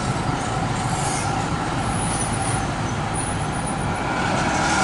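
Steady running noise of a tram heard from inside its cabin, with brief faint high-pitched squeaks about two and three seconds in and a slight rise in loudness near the end.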